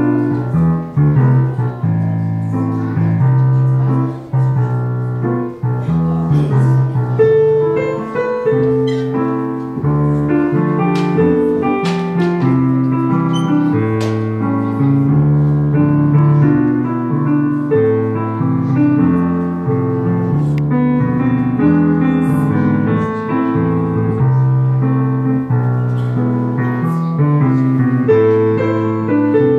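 Piano music: a steady stream of notes over a low bass line.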